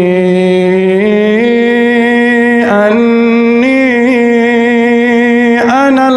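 A male Quran reciter holding a long, melodic drawn-out vowel in tajweed style. The voice sustains each note and steps to a new pitch several times without a break.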